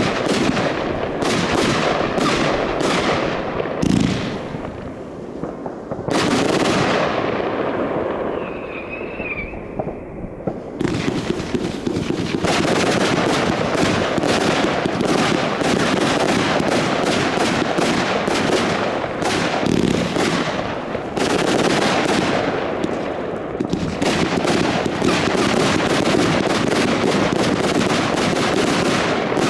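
Consumer fireworks going off in rapid succession: a dense run of crackling bursts and reports, thinning briefly after about six seconds, when a short wavering whistle is heard, then building back up.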